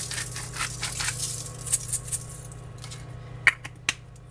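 Hands working at a foil-lined tray of oiled asparagus: quick scratchy rustles, about four a second, that fade out about two seconds in. Then come a few sharp clicks and a clink near the end.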